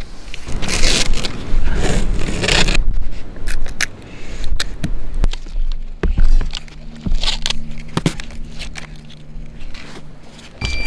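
Blue painter's tape being pulled off its roll and pressed along a skylight's aluminium frame: peeling, crackling rips and rubbing, with a series of short ticks and rustles. A low steady hum joins in about five seconds in.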